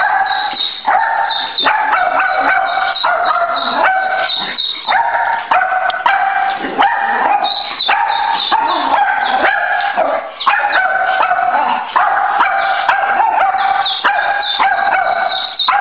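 A dog yelping and howling in an almost unbroken run of short, high cries that step up and down in pitch.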